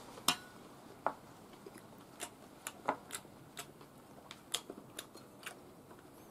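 Eating with wooden chopsticks from a bowl: irregular sharp clicks and taps of chopsticks and mouth, with chewing.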